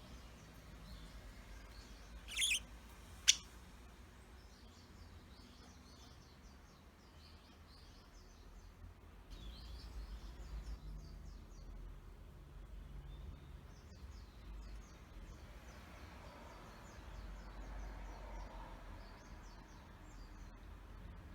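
Young budgerigars chattering with small, quiet high chirps, with one louder call about two seconds in and a single sharp click just after it.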